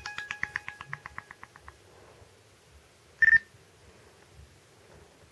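A plucked-string ringtone on a Kyocera Milano phone fades out in quick repeating notes over the first couple of seconds. About three seconds in, a short, high electronic chirp sounds once: the Nextel walkie-talkie style alert tone, played as a ringtone.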